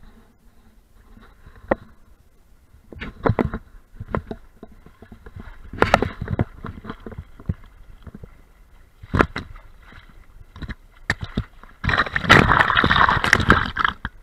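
Water rushing and splashing against a small sailboat's hull as it sails, in irregular slaps and surges. The heaviest run of splashing comes near the end.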